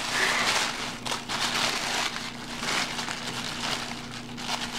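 White tissue paper rustling and crinkling as it is unfolded and pulled apart by hand, an irregular crackle throughout.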